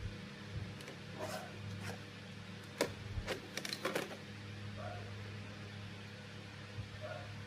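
Steady low electrical hum, with a cluster of sharp clicks and taps about three to four seconds in.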